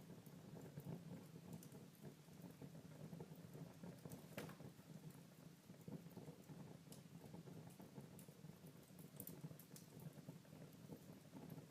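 Faint wood fire burning in a fireplace: a low steady rumble with scattered soft crackles and pops, one sharper pop about four seconds in.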